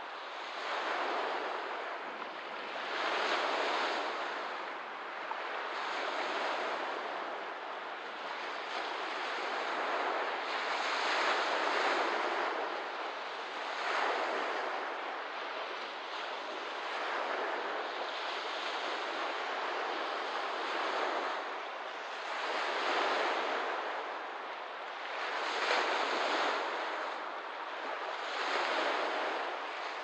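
Small waves washing onto a lakeshore, a swell of water noise rising and falling every two to three seconds.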